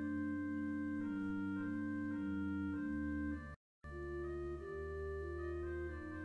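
Organ playing sustained chords over held bass notes, the upper notes moving step by step, with a brief total dropout of sound about three and a half seconds in.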